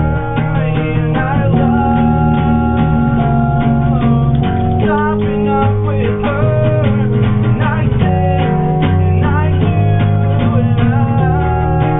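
A band playing a song live: strummed guitar and bass with a steady beat, and a voice singing in places.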